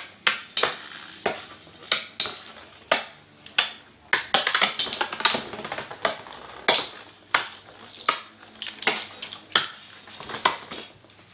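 Two Battle Strikers spinning tops whirring in their stadium and clacking against each other and the stadium wall, with sharp hits about one to two a second.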